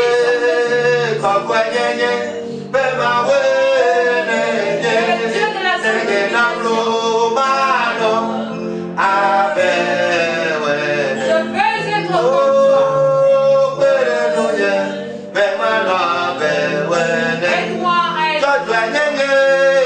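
A man singing a slow worship song with long held notes, over instrumental accompaniment.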